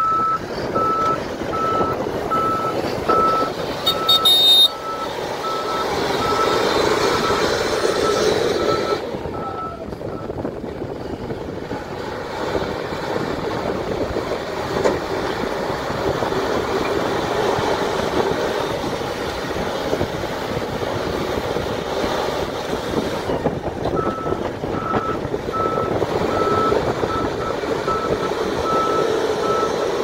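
LiuGong 777A backhoe loader's diesel engine running and revving up and down under load as the loader bucket works. Its reversing alarm beeps steadily for roughly the first ten seconds and again near the end, and there is a loud clatter about four seconds in.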